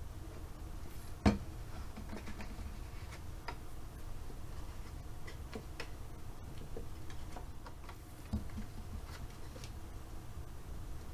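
Die-cut cardstock being handled, folded and pressed together on a work surface: scattered small clicks and ticks, with a sharp knock about a second in and a softer one near the end, over a low steady hum.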